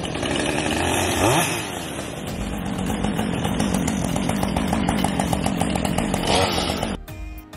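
Chainsaw running, revving up sharply about a second in and again near the end, then giving way abruptly to music.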